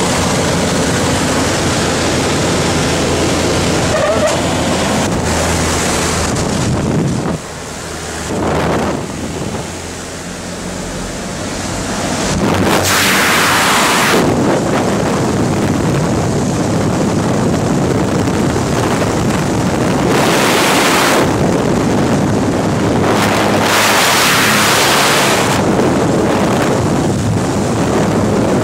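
Small plane's engine running with wind rushing through the open jump door. The rushing grows louder about twelve seconds in and stays loud, with gusts hitting the microphone.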